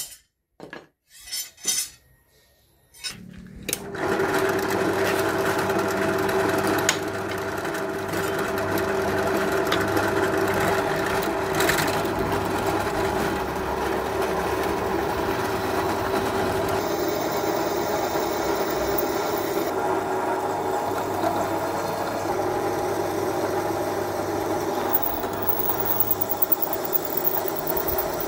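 A few short knocks, then an electric power tool starts up about three seconds in and runs steadily with a rasping edge, working steel.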